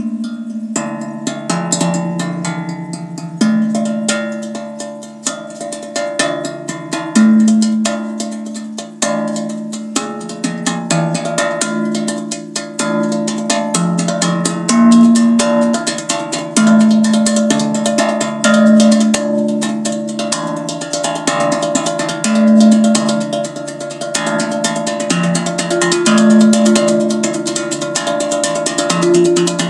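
Zen Tambour steel tongue drum played with bare hands: a fast, busy rhythm of struck metal tongues, each ringing a low, mellow note, with the melody moving among several pitches.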